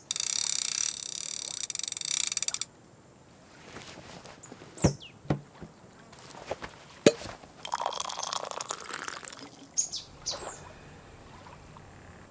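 Loud rushing hiss for the first couple of seconds that ends in rapid ticking, then scattered clicks and a few short high chirps, and coffee poured from a steel thermos into a mug about midway through.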